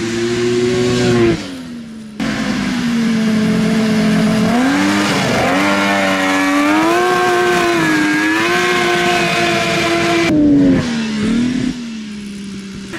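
Polaris XLT 600 two-stroke snowmobile engine in a small off-road buggy, revving up and down as it is driven hard, its pitch rising and falling with the throttle. The sound jumps abruptly in level about two seconds in and again near ten seconds.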